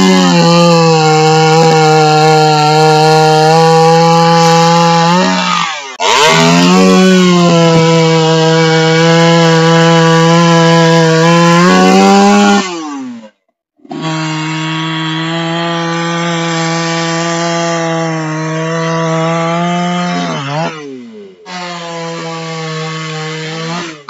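Two-stroke chainsaw held at full throttle, cutting through mango tree limbs in several long steady stretches. Its pitch dips and climbs back each time it comes off the cut.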